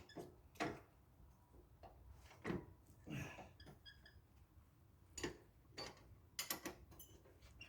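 Hand wrenches clinking and knocking against a nut, a bolt and the tractor's steel frame while a bolt is worked loose: a run of faint, irregular metallic clicks, some with a short ring, and a quick cluster of clicks a little past six seconds in.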